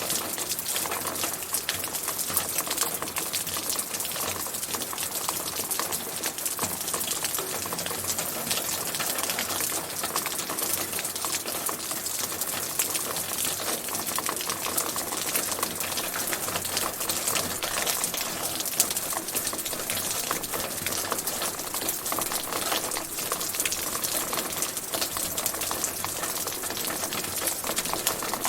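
Steady rain falling, a dense hiss of many fine drop impacts and crackles without let-up.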